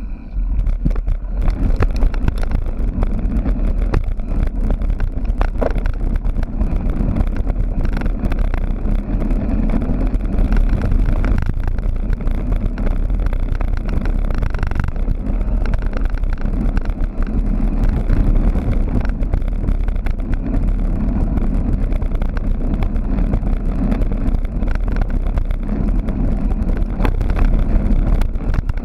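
Mountain bike riding fast over rough ground: wind rushing over the microphone, with a constant rattle and many small knocks from the bike and camera mount.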